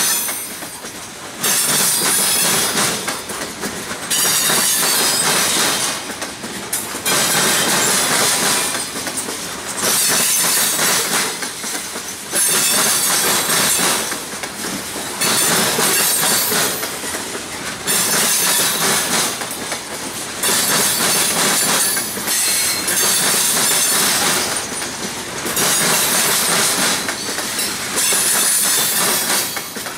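Steel wheels of slow-rolling CSX hopper cars banging across a railroad diamond crossing, with a high wheel squeal. The clatter comes in loud stretches of about two seconds, dropping back briefly about every two and a half seconds as each car's trucks cross the diamond.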